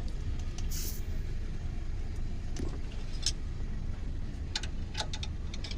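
A few light metallic clicks and taps from hand tools working on a car's brake caliper guide pins, over a steady low rumble.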